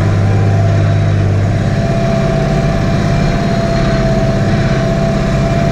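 Farm tractor's diesel engine running steadily at full throttle under load, pulling a plough, heard from inside the cab, with a thin steady whine over the engine drone.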